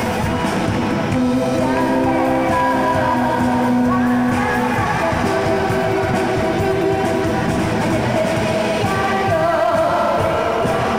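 A live pop band plays while a female singer sings into a microphone, backed by electric guitar, drums and keyboards, as picked up from the audience.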